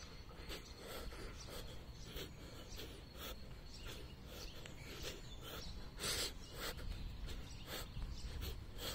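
Footsteps of a person walking, about two steps a second, over a low steady rumble.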